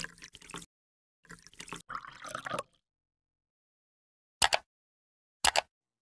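Intro sound effects: two bursts of watery splashing and dripping, then two short clicks about a second apart, like a mouse clicking a subscribe button.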